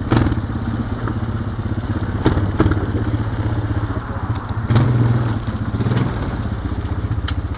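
ATV engine running steadily at low revs, swelling briefly about five seconds in. Several sharp knocks and some clatter sound close to the microphone.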